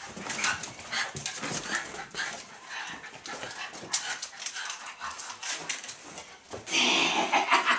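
Norfolk terriers whining and whimpering in many short, high cries, excited at greeting their returning owner.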